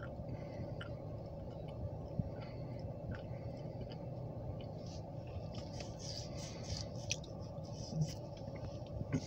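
Steady low engine rumble with a constant hum, heard from inside a car, with scattered small clicks and a brief faint hiss a little past halfway.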